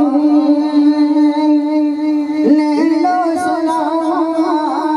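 A man singing a devotional melody unaccompanied into a microphone over loudspeakers, holding long notes with wavering ornaments.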